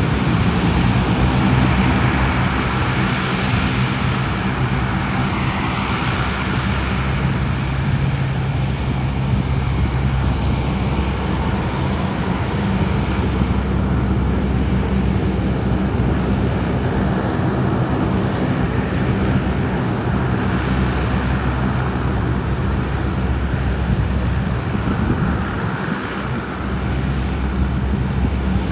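Fixed-wing aircraft engines running close by: a loud, steady drone with a low hum under it.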